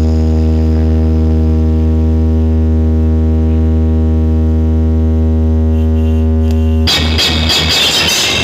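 DJ sound system playing a loud, steady deep bass tone with a stack of overtones, held without change for about seven seconds. Near the end it cuts abruptly to loud, noisy music.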